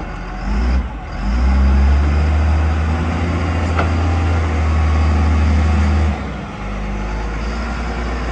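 Caterpillar IT28G wheel loader's diesel engine running: it is throttled up about a second in as the loader drives, holds a louder steady note for about five seconds, then drops back to a lower, idle-like level near the end.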